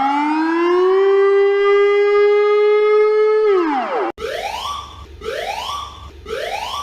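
Civil-defence warning siren winding up to a steady wail, holding it, then falling away. About four seconds in it cuts off and a different alarm plays three short rising whoops, about one a second.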